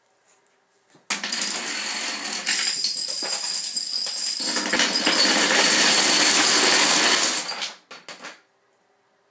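A domino chain reaction: plastic dominoes toppling and a stacked domino tower collapsing in a dense, continuous clatter that starts about a second in and grows louder partway through. It then tapers off into a few last clicks.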